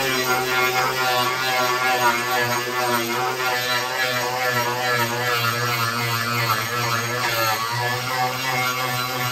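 Ryobi angle grinder fitted with an Arbortech carving wheel running continuously as it carves away the top edge of a walnut slab. Its whine wavers up and down in pitch as it works.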